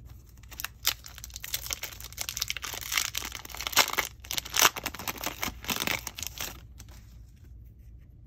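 Foil wrapper of a Goddess Story trading-card booster pack being torn open and crinkled: a dense run of crackling that starts about half a second in and stops about two seconds before the end.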